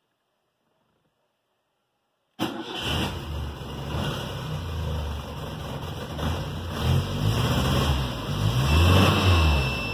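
Silence, then about two and a half seconds in a Volkswagen Passat's engine comes in abruptly, heard from inside the cabin, running with the revs rising and falling.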